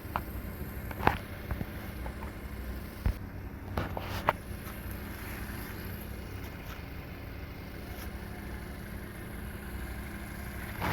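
A vehicle engine running steadily with a low rumble, with a few short knocks and rattles over it.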